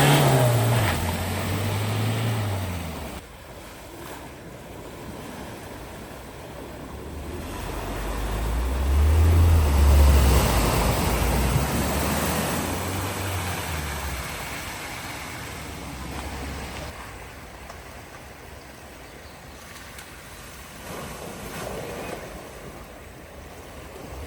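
Vehicles driving through a flooded ford: engine running and water splashing. One vehicle fades away in the first three seconds; another grows louder to a peak about ten seconds in, then fades, over a steady rush of water and wind.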